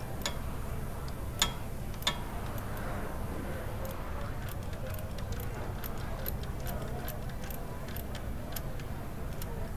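A hand ratchet wrench clicking: a few sharper metal clicks in the first two seconds, then a steady run of light clicks at about three a second.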